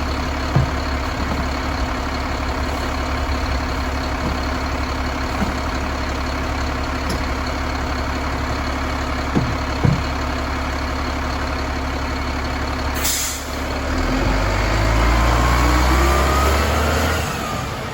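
Mack LEU garbage truck's diesel engine idling steadily with a few light knocks. About 13 seconds in there is a sharp air-brake hiss. The engine then runs up louder with a rising whine and fades near the end.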